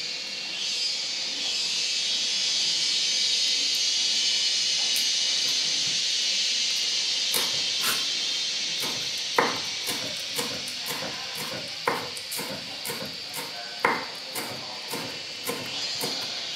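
Cleaver chopping fresh lemon leaves on a wooden chopping block: a run of sharp knocks, roughly two to three a second, starting about halfway through. A steady high hiss lies underneath.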